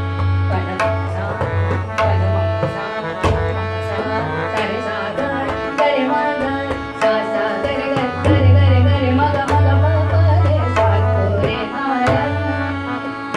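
Hindustani classical vocal music, a bada khyal in Raag Gaud Sarang: a woman's voice singing slow, ornamented phrases over steady held accompaniment notes. The tabla keeps the slow cycle with deep, ringing bass-drum strokes and crisp strokes on the treble drum.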